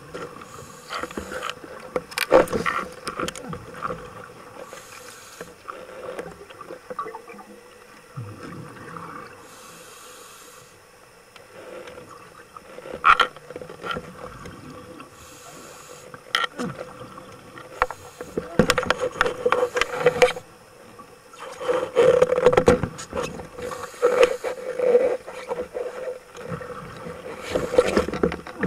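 Underwater sound: a steady hum from a boat motor overhead. Irregular knocks, clicks and louder rushes of noise come now and then, most of them around two thirds of the way through.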